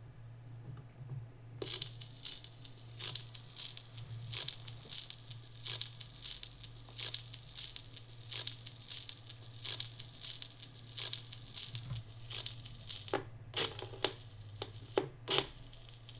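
Turntable running with a low steady hum while the stylus crackles on the spinning record, giving a faint tick a little more than once a second, with a few sharper clicks near the end; no music plays.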